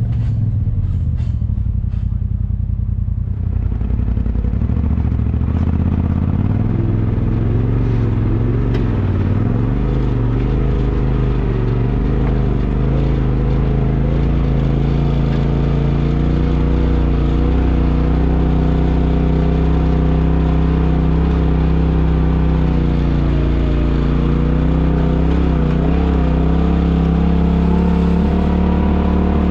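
Side-by-side UTV engine running steadily, its pitch rising and falling a little with throttle. There are knocks and rattles in the first few seconds.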